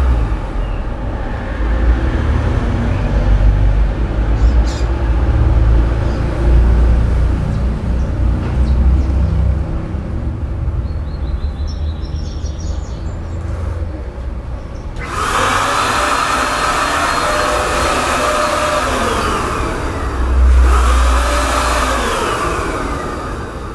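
A low rumble, then motor vehicles passing from about fifteen seconds in, their engine note rising and falling twice.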